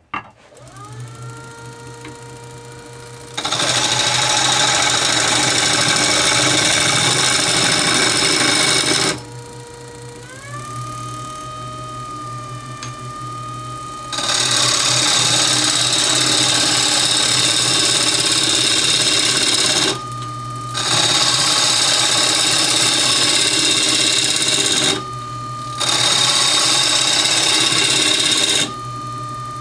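Wood lathe switched on with a click, its motor whine rising to speed, then a gouge roughing a spinning oak blank round: loud rough cutting noise in four stretches, with the lathe's whine heard alone in the pauses between. About ten seconds in, the lathe speed is raised and the whine steps up in pitch.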